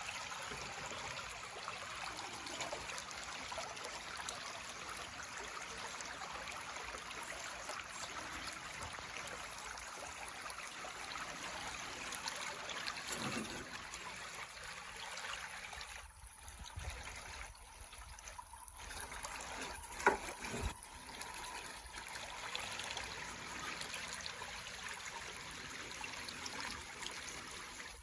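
Steady trickling of running water, as of a shallow stream. The water sound thins for a few seconds past the middle, and there is one sharp knock about twenty seconds in.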